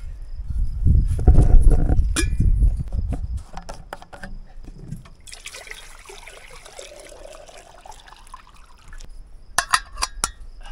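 Water poured from a large plastic jug into a metal kettle, gurgling for about three and a half seconds from about five seconds in, its pitch dipping and then rising. Before it, loud low bumps and rumble of the jug and kettle being handled. Near the end, a few quick metallic clinks.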